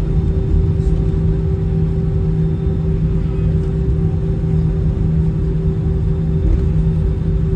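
Steady cabin noise inside an Airbus A320 on the ground after landing: a low, even rumble with a constant low hum over it and no change throughout.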